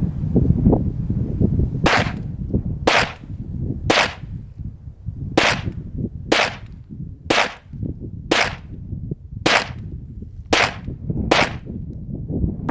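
Ten 9mm shots from a Ruger PC Carbine, fired at a steady pace about one a second, which empties a ten-round magazine. Wind rumbles on the microphone underneath.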